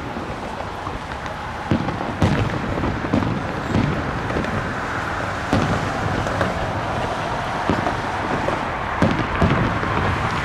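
Fireworks display: a run of shell bursts, deep booms coming about once a second, some with a crackle, over steady background noise.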